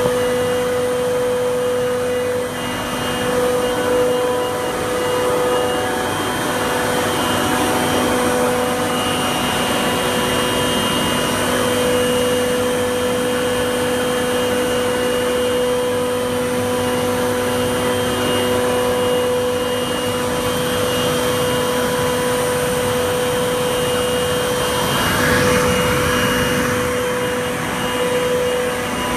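Spiral freezer refrigeration plant machinery running: a steady drone with several steady whining tones over a rushing noise. Near the end a brief louder rush of noise rises and falls.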